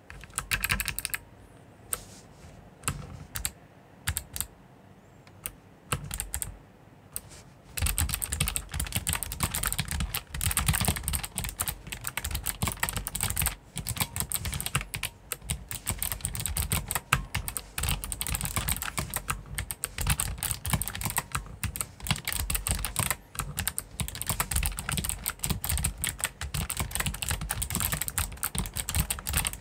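Typing on a Motospeed CK94 mechanical keyboard with Kailh short-travel switches: a few separate keystrokes at first, then fast continuous typing from about eight seconds in.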